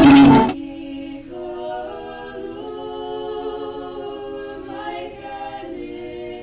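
Three women's voices singing a cappella in close harmony, holding long sustained notes that move together. A louder burst of instrumental music cuts off abruptly about half a second in, just before the singing.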